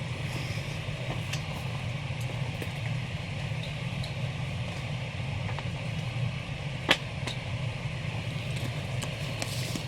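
Steady low background hum with faint ticks of comics being handled, and one sharp click about seven seconds in.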